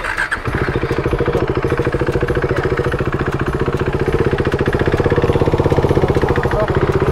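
Motorcycle engine running with an even, rapid pulsing beat. It comes in about half a second in and gets a little louder partway through.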